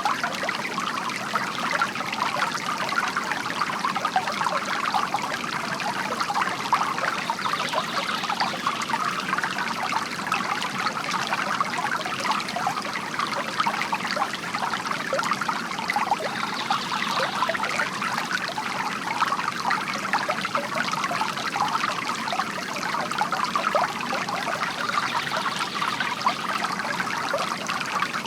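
Bamboo garden fountain: water trickling and splashing steadily from the bamboo spout.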